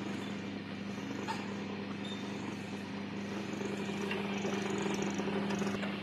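Electric motor of a cable stripping machine running with a steady low hum, with a few faint rattles and ticks over it.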